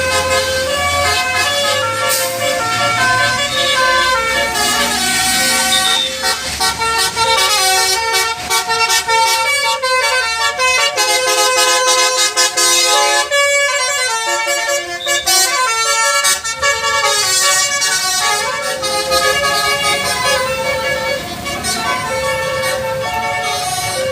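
Bus musical air horn (telolet basuri) playing a tune: several horn tones sound together and change pitch note by note, with bursts of fast staccato toots around the middle.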